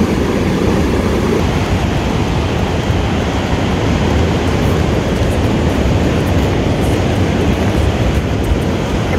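Ocean surf breaking along a rocky beach: a steady, loud rushing noise with a heavy low rumble.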